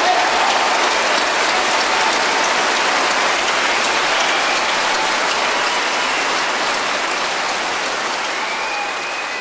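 Large concert-hall audience applauding: dense, even clapping that slowly fades out.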